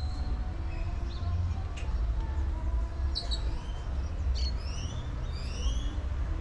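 Birds chirping in short rising calls, most of them from about halfway through, over a steady low rumble.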